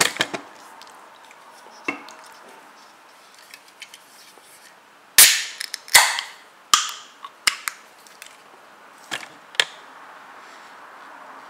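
Ring-pull on a Tennent's lager can cracked open about five seconds in. A sharp pop and hiss of escaping gas is followed by a couple more cracks as the tab is pushed down. Lighter clicks of the can being handled come before and after.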